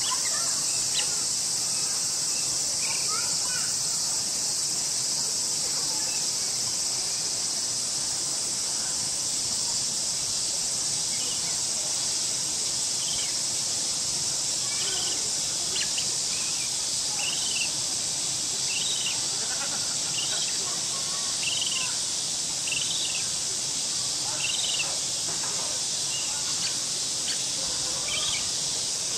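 A week-old African sacred ibis chick calling in the nest: short, high, rising-and-falling cheeps repeated about once a second, more often in the second half. Underneath runs a steady high insect drone.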